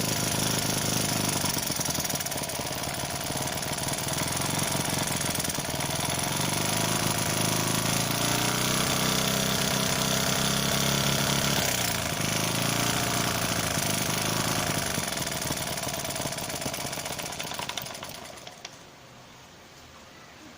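Small homemade four-stroke engine, built from a refrigerator compressor, running with a rapid chatter of firing strokes, its speed rising and falling. It slows and stops about eighteen seconds in.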